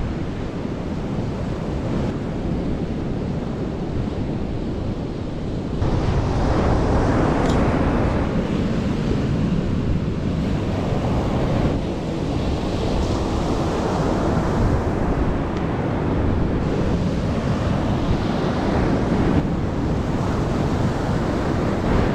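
Ocean surf breaking on a sandy beach, a steady rushing wash, with wind buffeting the microphone. The sound shifts abruptly in level and tone a few times as the shots change.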